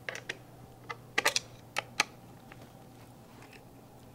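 About eight small, sharp clicks and taps in the first two seconds, a few bunched together, then a couple of faint ticks. They come from hands working the metal mounting bracket and bolt hardware of a swing-away amputee support on a wheelchair cushion.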